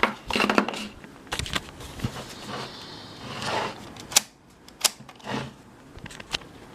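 Handling noise from a camcorder being fiddled with: a handful of sharp, irregular plastic clicks and knocks, with soft rustling between them.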